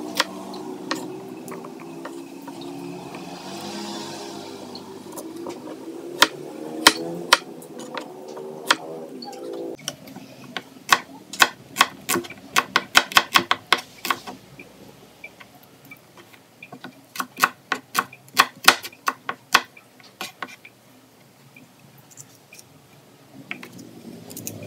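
Kitchen knife chopping potato and onion on a plastic cutting board: sharp taps of the blade hitting the board, coming in quick runs of about four a second in the middle and later part. Soft background music plays under the first half and fades out.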